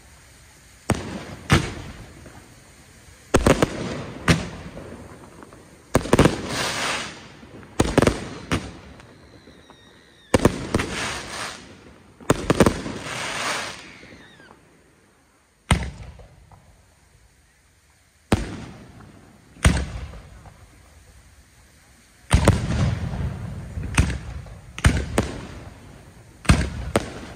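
Aerial fireworks display: shells bursting overhead in a string of sharp booms a second or two apart, each trailing off, some followed by bursts of crackling.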